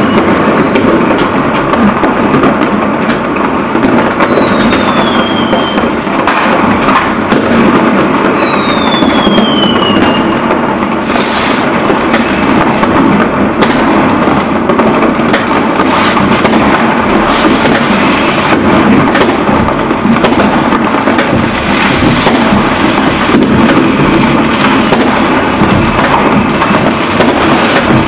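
Fireworks going off without pause: dense crackling and bangs from many rockets and firecrackers at once, with three whistling rockets whose whistles fall in pitch in the first ten seconds.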